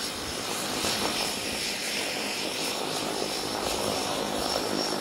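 Aircraft turbine engines running steadily: a broad rush of engine noise with a thin, steady high-pitched whine over it.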